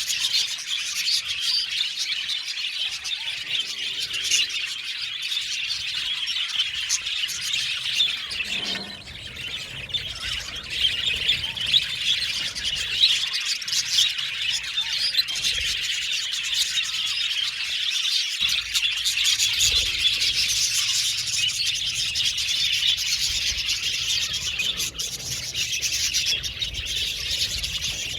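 Many budgerigars chattering and chirping together in a dense, continuous warble, with a brief lull about nine seconds in.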